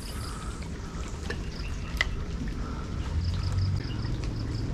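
Water running and trickling steadily over a low hum, with a faint high chirp repeating in short runs in the background.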